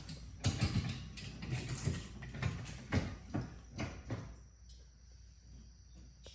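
Hardware of a splitter quick-disconnect kit (brackets, nuts and bolts) being handled: irregular clicks and knocks for about four seconds, then quieter.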